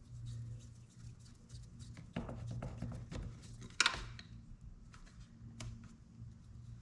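Scattered light clicks and rustles of hands handling parts and clamps, with one sharper click about four seconds in, over a steady low hum.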